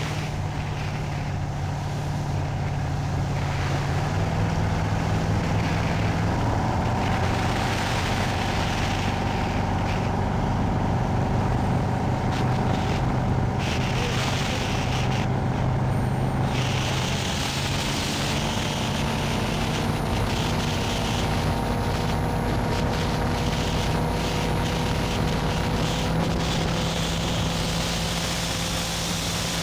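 Correct Craft motorboat's engine running steadily at speed, a steady drone over the rush of water. The engine note steps up slightly about six seconds in.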